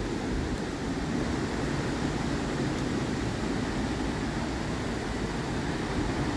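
Rushing white water of a river waterfall and rapids: a steady, dense wash of noise that does not let up.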